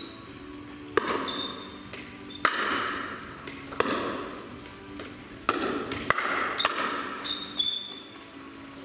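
Pickleball rally: paddles striking a hard plastic pickleball in sharp pops about once a second, each ringing on in a large hard-walled hall. Short high squeaks come in between the hits.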